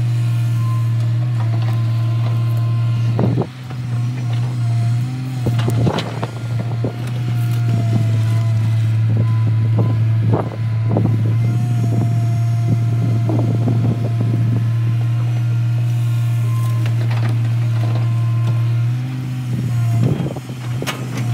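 L&T-Komatsu PC200 hydraulic excavator's diesel engine running steadily under digging load, with a whine that shifts in pitch, and several clunks and rattles of earth and stones as the bucket digs and dumps into a truck.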